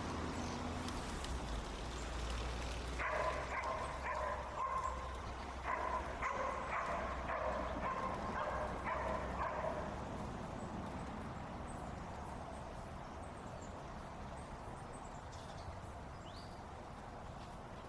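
Dogs barking in a run of short repeated barks from about three to ten seconds in, over a steady low rumble. After the barking stops only the rumble remains, with a brief high chirp near the end.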